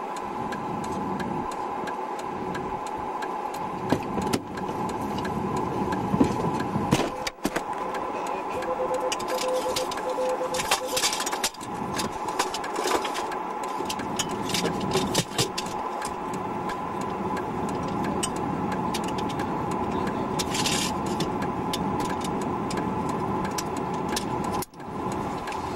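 Steady vehicle cabin hum from a running engine, with scattered knocks and rattles throughout.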